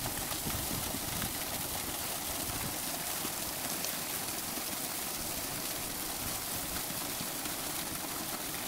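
Steady rushing noise with a few faint clicks.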